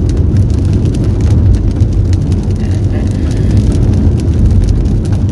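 Steady road and engine rumble inside a moving car's cabin, with scattered light ticks of rain striking the car.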